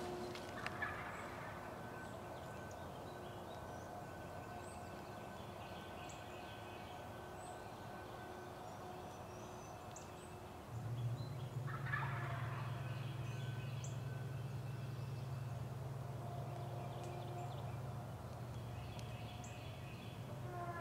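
A wild turkey gobbler gobbling twice, once about a second in and again about twelve seconds in, each a short rattling call. A low steady hum comes in just before the second gobble and fades out several seconds later.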